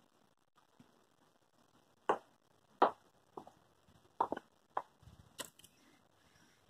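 A few short, faint taps and clicks at irregular intervals, starting about two seconds in.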